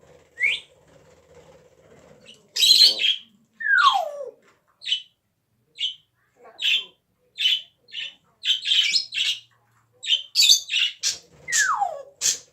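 A pet parrot making a string of short, harsh, cough-like bursts, about one a second, with a falling whistle twice: once about four seconds in and once near the end.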